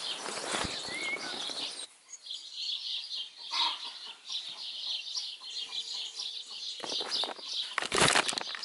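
Rustling of a sleeping bag and tent for about the first two seconds, then many small birds singing in the dawn chorus with chickens clucking. From about seven seconds in, loud rustling and handling noise comes over the birdsong.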